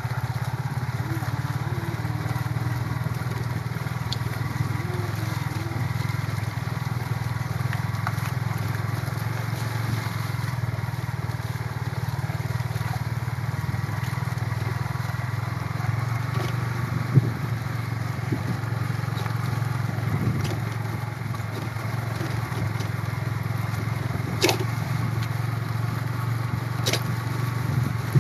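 Motorcycle engine running steadily while riding, with a few short sharp knocks in the second half, the loudest about halfway through.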